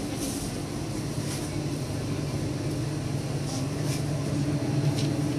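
Supermarket ambience: a steady low hum with a few faint clicks.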